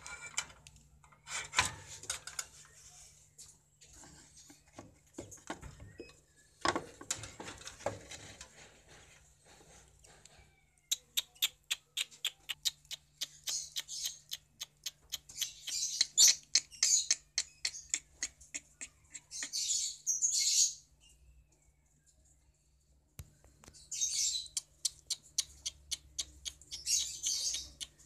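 Lovebirds calling: fast trains of sharp chirps and bursts of shrill chattering, starting about ten seconds in, with a short pause before the last few seconds. Before that, scattered knocks and rustling.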